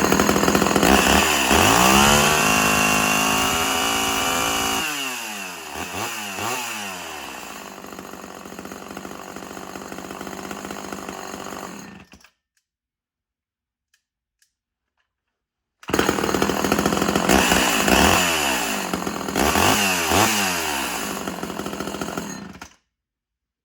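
Chainsaw engine running and being revved, its pitch climbing and falling again and again. It runs cleanly on a carburetor that the owner has just set back to the factory jet settings. The sound cuts off suddenly about twelve seconds in, comes back about four seconds later with several more revs, and stops shortly before the end.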